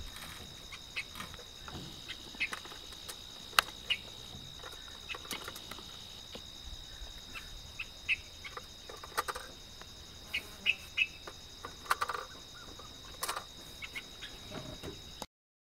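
Forest ambience at dusk: a steady, high, pulsing drone of insects, with scattered short bird chirps and sharp clicks. The loudest clicks come about three and a half seconds in and near the end.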